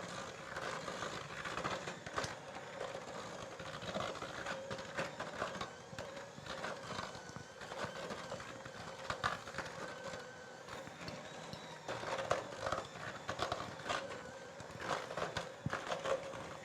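Electric mixer running steadily, beating a stiff chocolate chip cookie dough of flour, butter, brown sugar and eggs, with the beaters clicking and scraping against the bowl.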